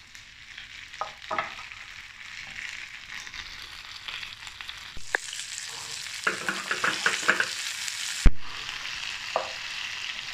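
Diced onion and capsicum sizzling in hot oil in a non-stick frying pan while a spatula stirs them. The sizzle grows louder about halfway through, with a run of quick scraping clicks from the spatula. Near the end comes one sharp knock, the loudest sound.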